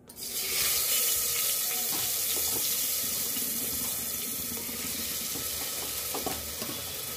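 Wet, freshly washed rice sizzling in hot ghee in an aluminium pressure cooker: a loud, even hiss that starts suddenly as the rice goes in and slowly eases off, with a few faint crackles.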